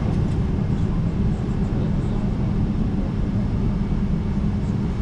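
Steady, deep rumble of cabin noise inside a Boeing 777-300ER waiting before take-off.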